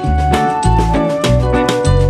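Upbeat background music with a steady bass beat, about two notes a second, under a sustained melody line.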